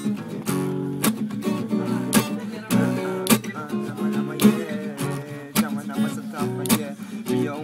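Acoustic guitar strummed rhythmically, with sharp accented strokes about once a second.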